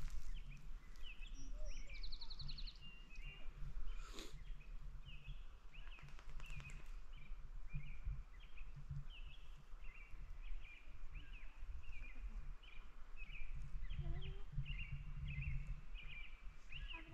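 Outdoor ambience with a low wind rumble and a small bird calling over and over in short high chirps, about two a second. There is a brief fast high trill about two seconds in and a single sharp tap about four seconds in.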